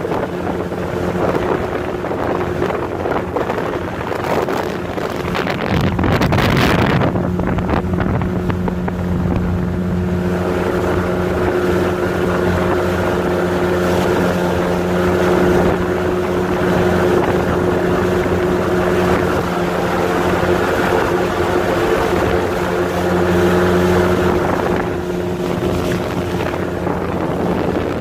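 Motorboat engine running steadily under way, with wind buffeting the microphone; a louder rush of wind and water noise about six seconds in.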